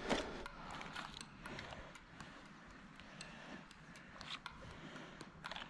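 Airsoft pistol magazine change: a run of small scattered clicks and rattles from the magazine and pistol being handled, over soft rustling.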